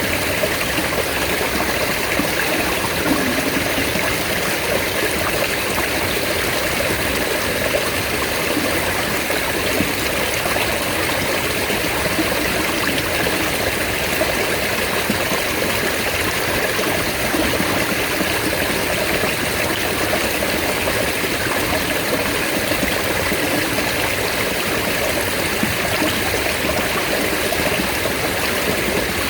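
Mountain stream water running steadily: an even, continuous rush that holds the same level throughout.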